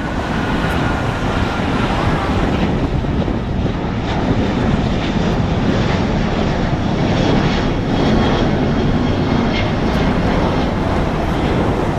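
Boeing 777-200ER's twin Rolls-Royce Trent 892 turbofans at takeoff thrust, a loud, steady jet roar with a crackle in it, swelling slightly toward the end.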